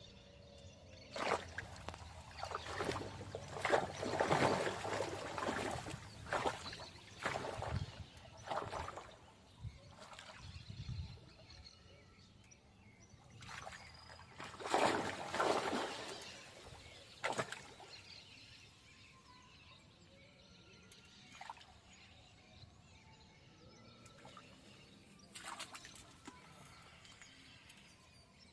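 Water splashing and sloshing in irregular bursts, with quieter stretches between, as a freshly caught tilapia thrashes at the surface while it is handled.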